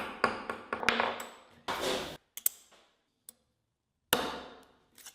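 A series of sharp metallic knocks and clinks, about eight in all, each ringing out briefly: metal parts being struck or set down at a workbench.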